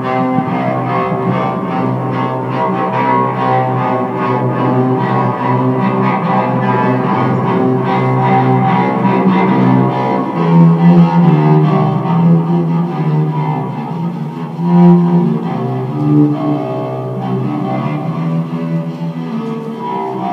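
Cello played with the bow: a slow melody of long held low notes, growing louder with higher notes about halfway through.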